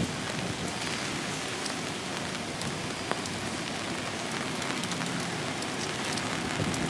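Steady rain falling, an even hiss with a few sharp ticks of single drops scattered through it.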